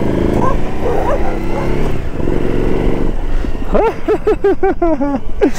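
A motorcycle engine running as the bike rides off, then a dog chasing it barks several times in quick succession over the last couple of seconds.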